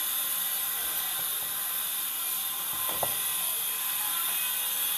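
Steady high hiss, with a single small plastic click about three seconds in as the wiring connector is pulled off the washing machine's water-level pressure switch.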